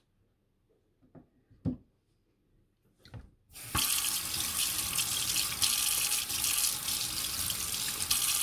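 Two short knocks, then about three and a half seconds in a kitchen tap is turned on and runs steadily into the sink.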